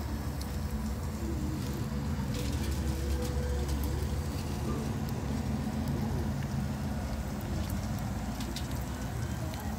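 Steady low rumble with a faint hum, and a few small crackles and ticks from the charcoal fire under whole tilapia grilling on it.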